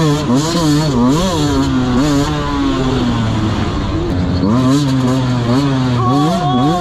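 Dirt bike engine revving up and down repeatedly as the throttle is worked, its pitch rising and falling several times a second. It holds steadier for a couple of seconds mid-way, then rises and falls quickly again near the end.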